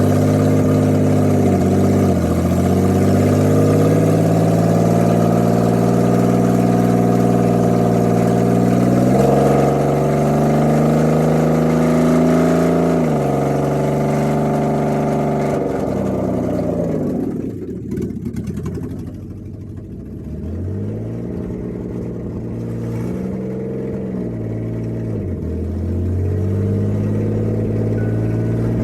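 2008 Ford Taurus X's 3.5 L V6 running, an engine sold as bad. It is held at raised revs through the first half, stepping up about nine seconds in and back down a few seconds later. It then drops to a lower idle with a few brief blips, and the revs rise again near the end.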